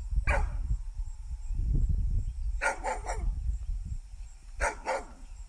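A dog barking in short groups: a single bark, then three quick barks, then two more.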